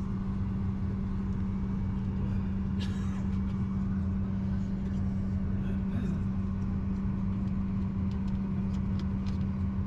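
Steady drone of a Boeing 737-800 airliner cabin, a constant hum over low rumble, with a few light clicks and rustles of handled menu pages.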